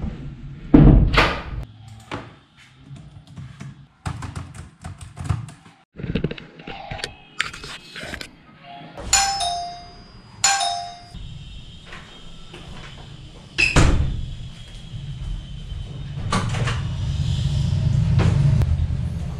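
Electronic doorbell chime ringing twice, about nine and ten and a half seconds in, each a short two-note falling ding-dong. Scattered clicks come before it, and a single thump follows a few seconds later, then a low steady hum builds near the end.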